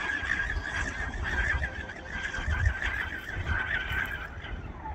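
High-pitched whine of a 60-inch RC stepped-mono boat's brushless electric motor on an 8S lipo, running at speed; the tone wavers up and down, then falls in pitch near the end.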